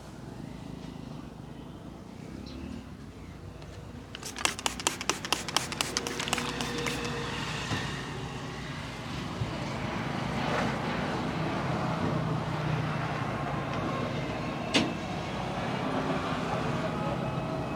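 Barber's hands striking the head in quick succession during a head massage: about a dozen sharp slaps at roughly five a second, then a single sharp crack later on, over steady roadside traffic noise.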